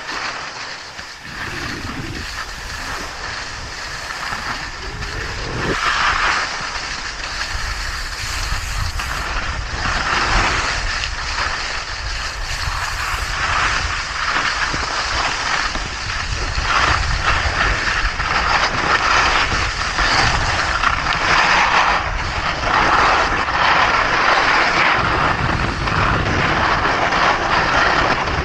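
Skis sliding and scraping over hard-packed piste snow, with wind rushing over the microphone; the noise grows louder in the second half.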